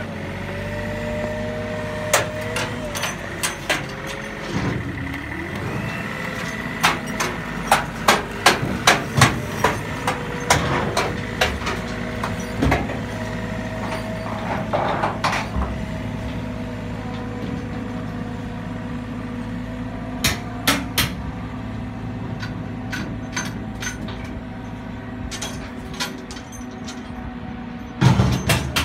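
Wacker Neuson TH412 telehandler running steadily as it drives with a load on its forks, with a steady whine over the engine. Sharp knocks come in runs, several a second, about a third of the way in, again past two-thirds, and near the end.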